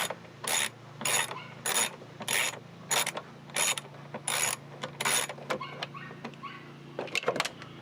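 Ratchet wrench with an 8 mm socket backing off a fastener inside a car door, its pawl clicking in even strokes about one and a half times a second. The strokes stop about five seconds in, and a few lighter clicks follow.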